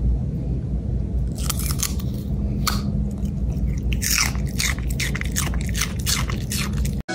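A dog crunching on a raw celery stalk, a run of sharp wet crunches and chews that come in clusters, over a steady low hum.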